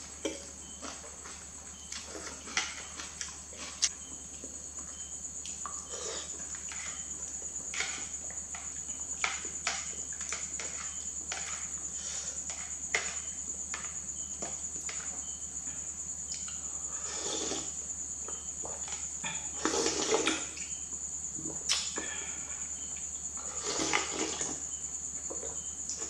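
Close-miked noodle eating: chopsticks clicking on a plastic plate, chewing, and three louder slurps in the second half. A steady high cricket trill runs behind it.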